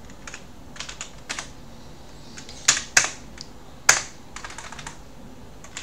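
Computer keyboard typing: irregular key clicks as a terminal command is typed, with a few sharper, louder keystrokes about halfway through.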